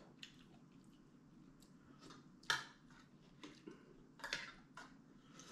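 A few faint, scattered clicks of spoons against ceramic bowls and plates while eating, the sharpest about two and a half seconds in, over a low steady room hum.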